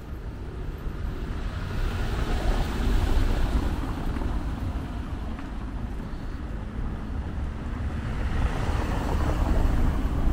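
Street traffic: two vehicles swell past, one a couple of seconds in and one near the end, over a steady low rumble.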